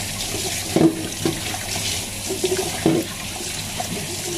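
Kitchen tap running steadily into a sink as a fish is washed and cleaned under it, with a few short knocks from handling at the sink.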